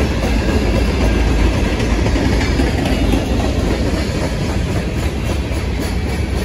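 Freight cars of a passing train (boxcars, tank cars, a covered hopper) rolling by: a steady, loud rumble of steel wheels on the rails.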